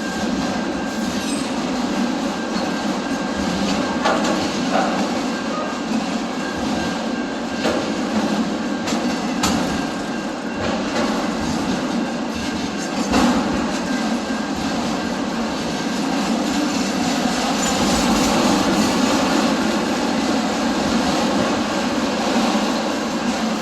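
A train passing close by: a steady rumble and rattle of wheels on the rails, with a few sharp clicks.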